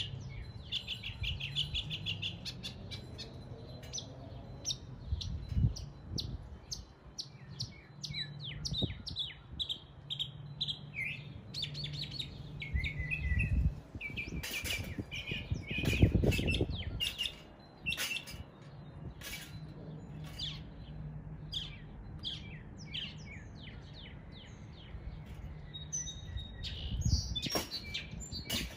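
Northern mockingbird singing a long, varied run of phrases, each note repeated quickly several times before it switches to the next, imitating the calls of other birds. A steady low hum runs underneath.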